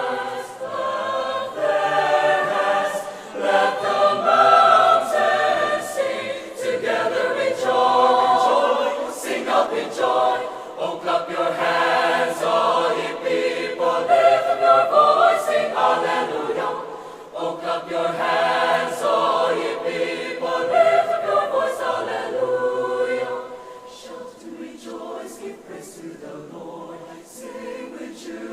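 Choir singing live, several voice parts together, with short sharp strikes scattered over the singing. The singing turns softer about 23 seconds in.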